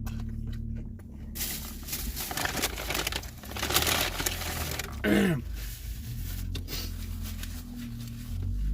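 Paper takeout wrapper crinkling and tearing as food is handled, with a brief falling squeak about five seconds in and a low steady hum underneath.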